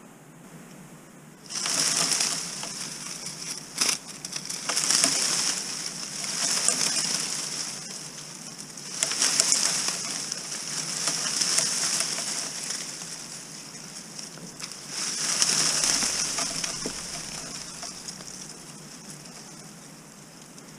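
Dry leaves rustling and crackling in repeated surges, each lasting a few seconds, with a few sharp clicks among them.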